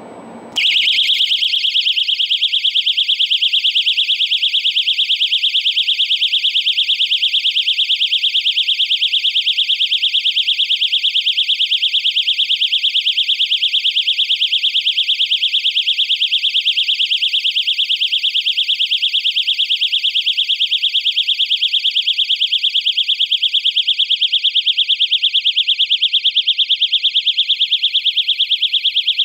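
Pocket personal panic alarm sounding: a loud, shrill electronic siren tone that pulses very rapidly. It switches on about half a second in and runs without a break.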